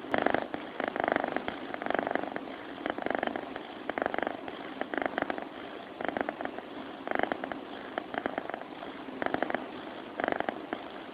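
Sleeping cat purring, a rapid fluttering rumble that comes in short bursts with each breath.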